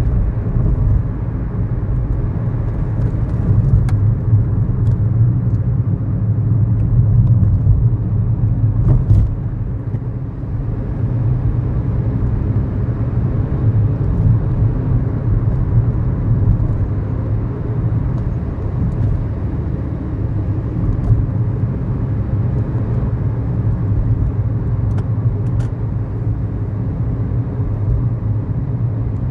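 Steady low engine and road rumble inside the cabin of a 2011 Kia New Morning, its 999 cc four-cylinder SOHC engine running under way in town traffic, with a few small clicks. The rumble swells slightly and then eases about ten seconds in.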